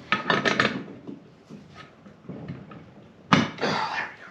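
Hard parts being handled and set in place: a cluster of clicks and rattles at the start, then a sharp knock about three seconds in followed by a short clatter.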